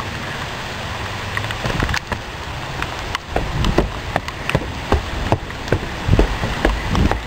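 Steady rain hiss. From about two seconds in, irregular sharp taps and low thuds join it, heavier near the end.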